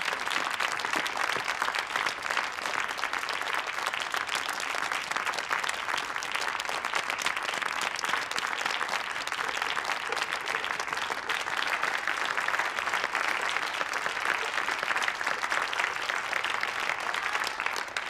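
Concert-hall applause: many people clapping steadily and densely, dying away at the very end.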